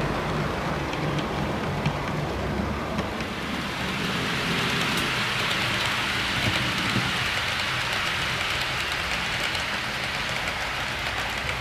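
OO gauge model trains running on the layout track: a steady low motor hum with wheel noise as a model diesel locomotive passes, then, about four seconds in, a higher hissing rattle of a rake of model tank wagons rolling round a curve, with scattered small clicks.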